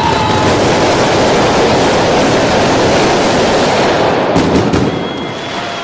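Firework display's closing barrage: a dense, loud, continuous rattle of overlapping firecracker bangs that thins out about four seconds in to a few last separate bangs and then dies away.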